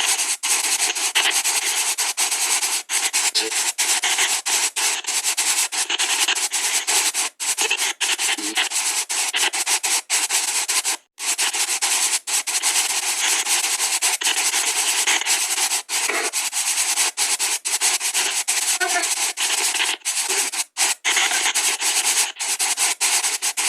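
Spirit-box app (SB White Noise Box) sweeping: loud, steady white-noise hiss chopped by many brief dropouts at irregular intervals, with now and then a fleeting pitched fragment in the noise.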